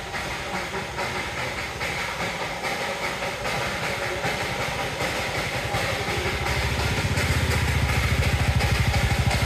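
Darjeeling Himalayan Railway steam locomotive hissing steam steadily. About six seconds in, a low, fast pulsing beat comes in and grows louder.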